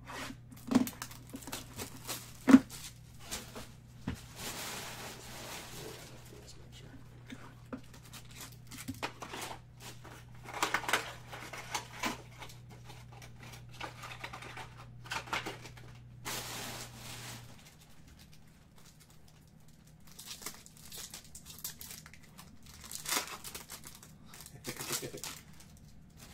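Packaging of a Topps High Tek baseball card box being opened: plastic wrap and foil wrapper crinkling and tearing in repeated rustling spells. Sharp knocks come in the first few seconds, the loudest about two and a half seconds in.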